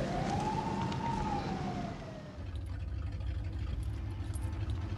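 A siren wailing, its pitch slowly rising and falling. About two seconds in it gives way to the low, steady running of an old car's engine.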